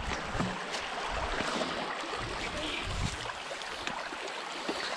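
Small creek flowing past, a steady rush of water.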